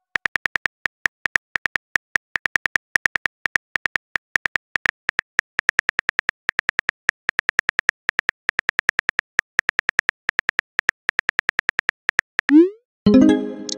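Phone keyboard typing clicks, a rapid even run of about five or six a second, as a text message is typed out. Near the end comes a short rising whoosh of the message being sent, then a brief chime.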